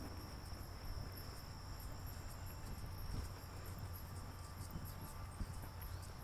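Insects trilling steadily: one continuous high tone with quick, evenly repeated chirps higher still. Soft footsteps of sneakers on asphalt can be heard beneath.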